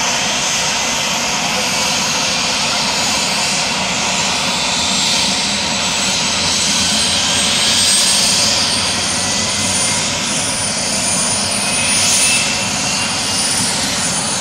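Bell 407 helicopter's turboshaft engine running, a steady whine over a broad rushing noise, with its high tone creeping slowly upward in pitch.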